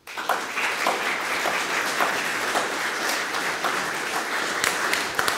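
Audience applauding: many hands clapping together, breaking out all at once and going on steadily.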